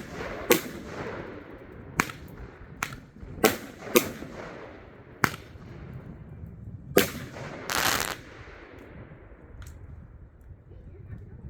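Fireworks going off: a string of sharp bangs at irregular intervals, each echoing briefly, with a longer, rougher burst lasting about half a second around eight seconds in and a fainter pop after it.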